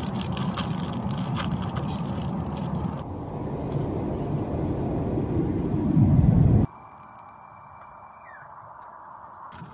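Airliner cabin noise: a steady roar of jet engines and rushing air, with a few light clicks in the first few seconds. The roar swells to a louder low rumble, then cuts off sharply about two-thirds through to a much quieter, steady cabin hum.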